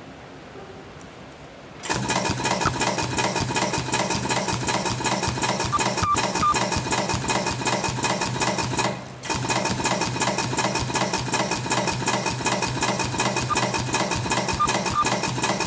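Semi-automatic two-head ultrasonic hotfix rhinestone machine switching on about two seconds in and running while it sets rhinestones onto fabric: a steady, rapid mechanical clatter with a buzz, dropping out briefly near the middle.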